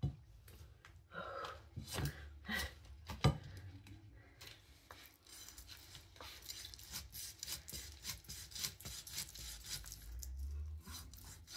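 Knife cutting and scraping through a raw slab of chitol (humped featherback) fish: a few separate louder knocks in the first three seconds or so, then a fast run of short rasping strokes.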